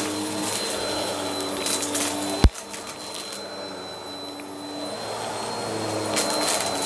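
Bissell upright vacuum cleaner running, with a steady motor hum and a thin high whine, dipping a little in the middle. Scattered clicks of confetti and debris being picked up come through it, and one sharp click about two and a half seconds in is the loudest sound.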